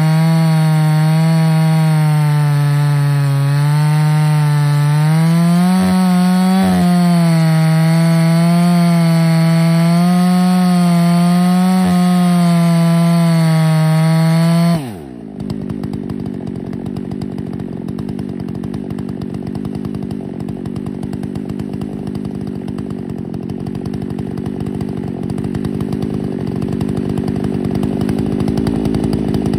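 Ported Husqvarna 288XP two-stroke chainsaw at full throttle under load in an Alaskan mill, ripping a white oak log, its pitch wavering with the cut. About halfway through the throttle is released and the engine falls sharply to a steady idle, which grows somewhat louder near the end.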